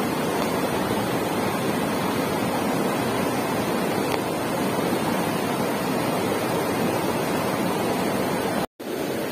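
Swift river current rushing steadily over rocks. It cuts out for a moment near the end.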